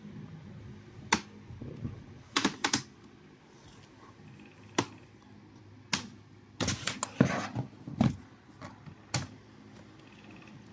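Plastic clips of an Acer laptop's bottom case snapping loose as the case is pried off: a series of sharp clicks, some single and some in quick clusters of two to four.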